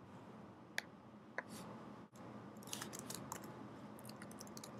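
Faint computer keyboard keystrokes: a few single clicks, then a quicker run of taps about three seconds in as a short terminal command is typed.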